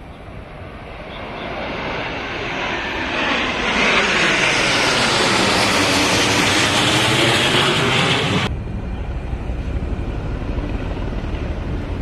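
A formation of twin-engine AT-3 jet trainers flying overhead. The jet noise swells over a few seconds into a loud roar with a sweeping whoosh as they pass. It cuts off suddenly about eight and a half seconds in, and a lower, steadier rumble follows.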